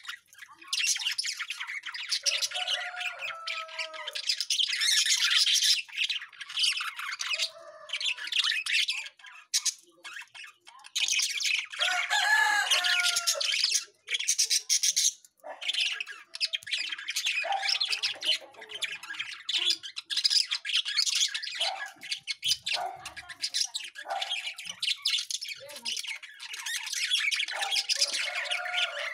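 A flock of small parrots chattering and squawking almost without letup: a dense, high twittering with short, lower squawks mixed in and a couple of brief pauses.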